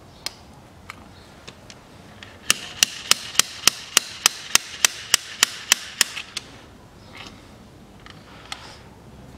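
Slide-hammer diesel injector puller (JTC4646) drawing an injector out of the cylinder head. A few light clicks come first, then a quick run of about a dozen sharp, ringing metal-on-metal knocks, roughly three or four a second, as the weight is slid against its stop with little force. A couple of weaker knocks follow as the injector comes free.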